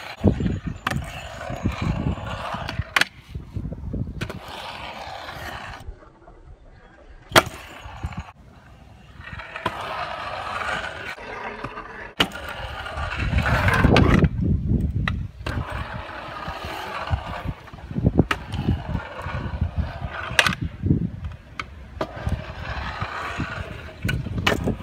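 Stunt scooter wheels rolling on concrete skatepark ramps, the rolling rising and fading as the rider goes up and down. Several sharp clacks of the scooter landing or slapping the concrete break it up.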